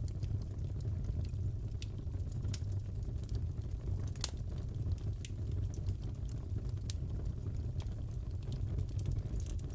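Crackling wood fire in a fireplace: a steady low rumble of burning with scattered sharp pops and crackles, one louder pop about four seconds in.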